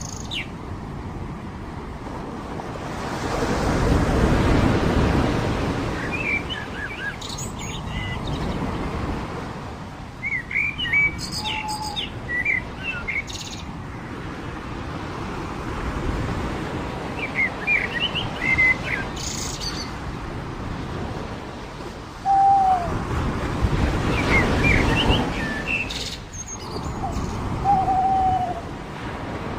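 Surf washing onto a beach, swelling up twice, while birds call over it in short clusters of high chirps with a few lower, falling whistles.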